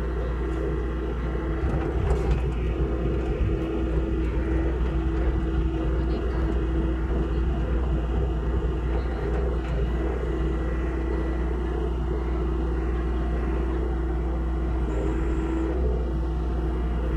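Hitachi mini excavator's diesel engine running steadily, a low drone with a steady hum over it.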